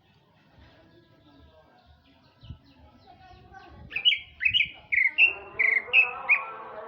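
Male green leafbird (cucak ijo) singing: after a quiet start, a run of about seven loud, clear whistled notes, each bending in pitch, with softer, lower warbling beneath them near the end.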